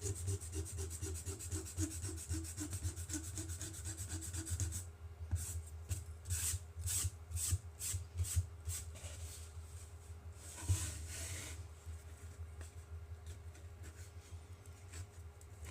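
Pencil eraser rubbing back and forth on a rocket body tube to remove pencil marks: quick rapid strokes for about five seconds, then slower separate strokes about two a second, and a last brief rub near the end.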